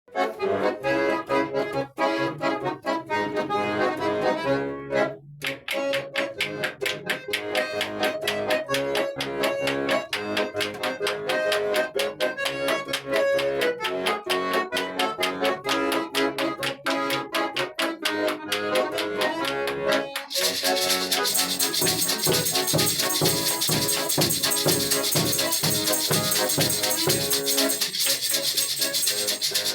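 Instrumental music: a melody with a steady beat. About twenty seconds in, a fast, hissing rattle rhythm takes over and becomes the loudest part.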